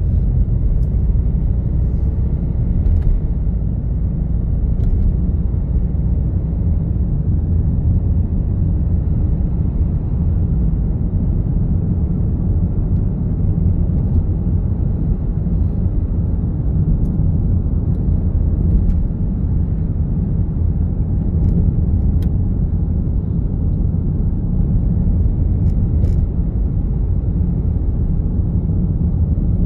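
Steady low rumble of a vehicle driving in traffic, the engine and tyre noise of the moving car, with a few faint clicks.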